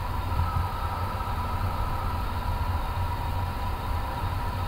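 Steady cockpit noise of an Airbus A350 taxiing: a low rumble with a faint, steady whine above it.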